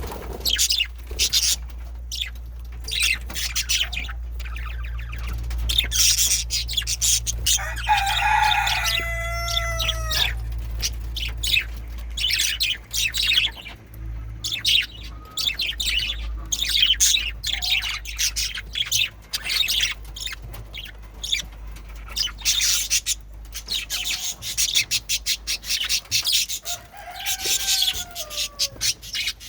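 Male budgerigars chirping and chattering, a dense run of scratchy clicks and short chirps, with two longer whistled calls that fall in pitch, about eight seconds in and near the end. A steady low hum runs underneath.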